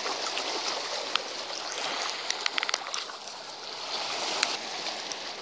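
Small waves washing and lapping over shoreline rocks, a steady rush of water. A quick run of sharp clicks sounds near the middle.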